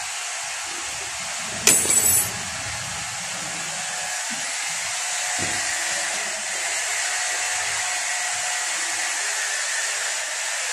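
A steady hiss, with a short, loud, high-pitched burst just under two seconds in.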